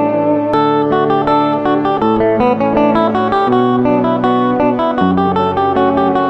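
Background music on a plucked guitar, its notes following one another in a quick, even stream.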